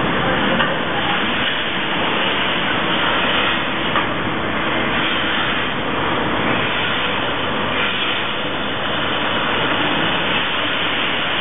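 Steady mechanical noise of a GEA WestfaliaSurge AutoRotor rotary milking parlour running during milking, with a single knock about four seconds in.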